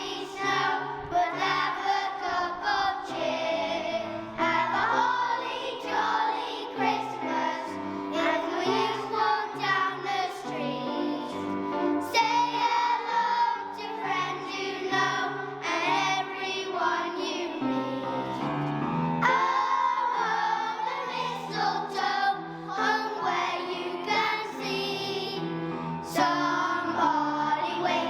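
Music with a choir of children's voices singing over an instrumental accompaniment.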